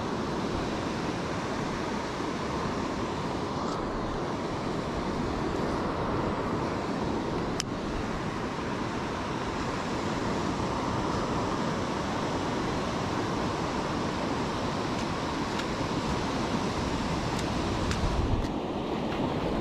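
Steady wash of breaking sea surf with wind rumbling on the microphone. There is a single sharp click a little before halfway.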